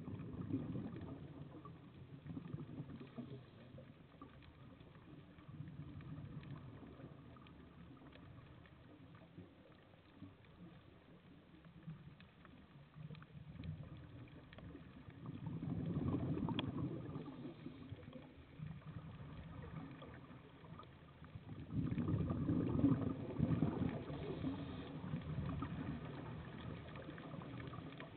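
Scuba divers' exhaled bubbles burbling out of their regulators underwater, in surges a few seconds apart, the loudest a little past halfway and near the end.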